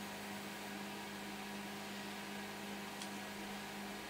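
Steady electrical hum over a faint hiss, with one faint click about three seconds in.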